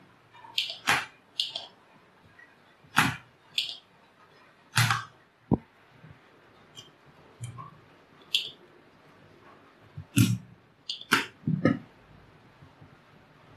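Scattered knocks and clicks from handling a CRT TV's circuit board and soldering tools while a capacitor is being desoldered, about ten in all with quiet gaps between.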